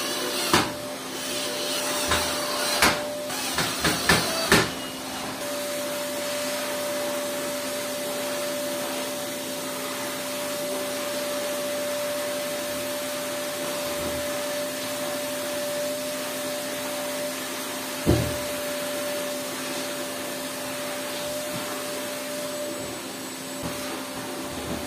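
Tools and a plastic stacking-kit frame being handled on a washing machine's metal top. A cordless drill driver and parts make several sharp knocks and clicks in the first five seconds and one more about 18 seconds in, over a steady whirring drone.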